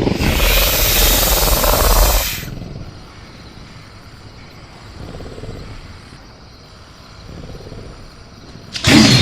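Film-style velociraptor sound effect: a long, loud hissing snarl over the first two seconds or so, then low jungle ambience, and near the end another loud cry with a falling screech.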